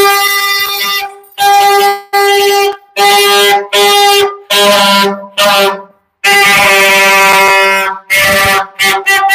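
A horn blown in a run of loud blasts on one steady note. Most blasts last about half a second, with a longer one of nearly two seconds about six seconds in.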